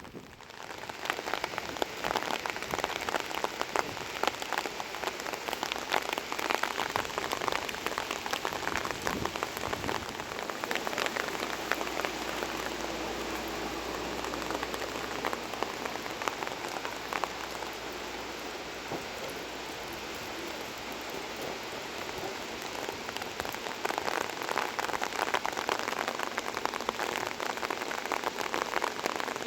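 Heavy rain falling, a dense patter of drops striking surfaces. A faint low hum sits under it for several seconds near the middle.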